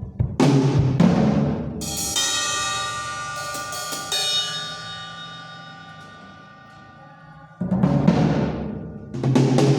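Drums struck, then an Armada Trojan B8 bronze cymbal hit about two seconds in and left to ring out, its shimmer fading slowly over about five seconds before drum hits start again near the end.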